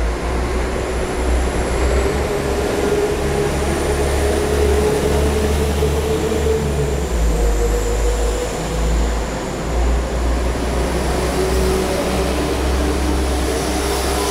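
Class 172 Turbostar diesel multiple unit pulling out of the platform under power: a steady low diesel rumble with a thin high whine as the carriages pass.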